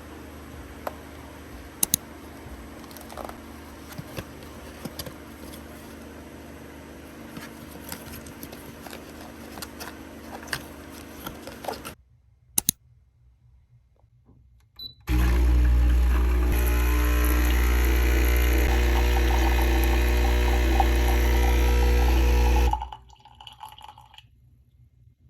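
Coffee machine running: a loud steady hum with pouring liquid that starts about fifteen seconds in and stops suddenly some seven seconds later. Before it come a low background hum with small scattered clicks and taps, then a brief near-silence.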